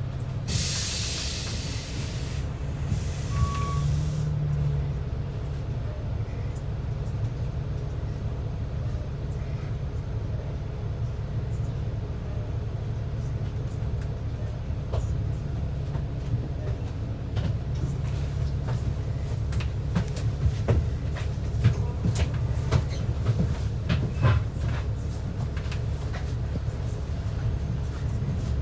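Transit bus running, with a steady low engine and road rumble. Two hisses of air come in the first few seconds, followed by a short beep. Scattered knocks and rattles come later as it rides over bumps.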